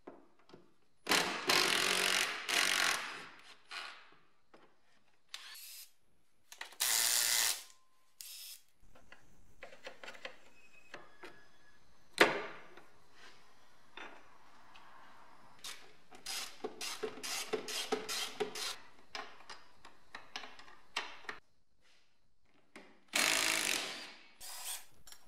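Cordless drill-driver running in short bursts to undo the sway bar bracket and control arm bolts, with a hand ratchet clicking and metal tools knocking in between. The power-tool bursts come about a second in, around seven seconds in and near the end; a sharp knock falls midway, followed by a run of quick ratchet clicks.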